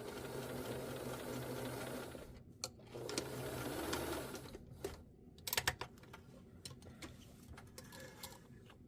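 Sewing machine stitching in two short runs of about two seconds each, sewing forward and back to lock the stitch at the end of the zipper seam. A few sharp clicks follow about five seconds in.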